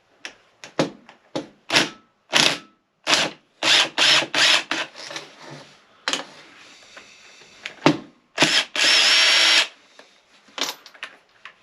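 A handheld power tool running in a string of short bursts, then one longer run of about a second near the end.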